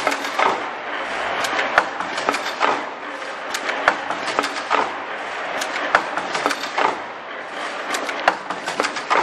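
Richpeace automatic mask earloop welding machine running: a steady mechanical clatter with sharp clacks about twice a second from its clamps and feed mechanism.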